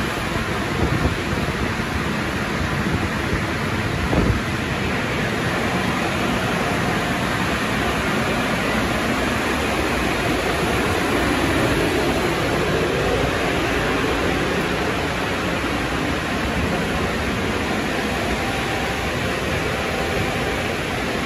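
Car wash tunnel equipment running: a steady, even rushing noise, with a couple of short knocks about one and four seconds in.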